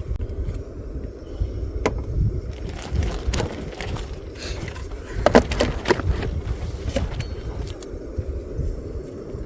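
Gusty wind rumbling on the microphone, with a few sharp knocks and clatters, most of them in the middle.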